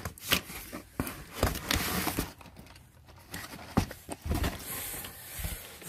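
Cardboard being handled: a boxed toy is slid out of a cardboard shipping carton, with several short knocks and a brief scraping rustle of cardboard on cardboard.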